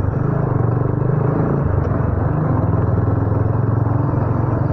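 Motorcycle engine running steadily while riding, heard from on the bike with wind and road noise.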